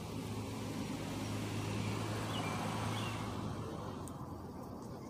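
A vehicle driving past: its engine hum and road noise grow louder toward the middle and then fade away.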